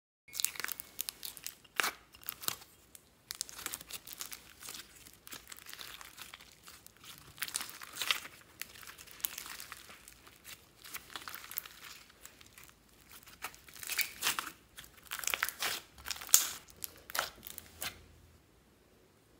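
Sticky slime being squeezed, stretched and folded by hand: wet crackling and tearing sounds in irregular bursts, stopping near the end.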